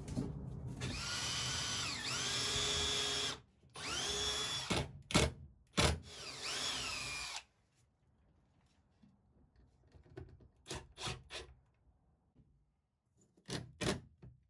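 Cordless drill driving screws into a wooden frame strip. The motor whines in three runs in the first half, each speeding up and slowing down, with a few sharp clicks and knocks between and after.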